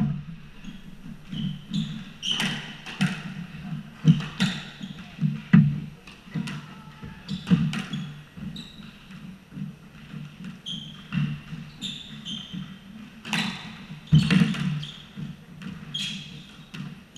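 Squash rally: the ball cracking off rackets and the court walls at irregular intervals of a second or two, with short, high squeaks of shoes on the hardwood court floor between the hits.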